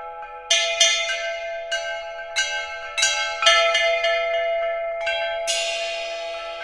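Percussion quartet playing ringing metal mallet percussion: a series of irregularly spaced mallet strikes whose bell-like tones ring on and overlap between strikes.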